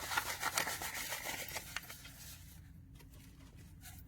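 Paper card being handled, rubbing and rustling with small clicks for about two seconds, then fading to quiet.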